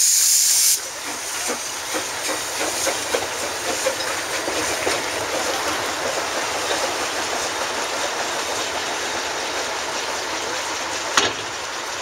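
Narrow-gauge steam tank locomotive venting steam from its open cylinder drain cocks as it starts off: a loud hiss that cuts off under a second in. The train then rolls away with a steady rumble and light clicking on the rails, with one sharp click near the end.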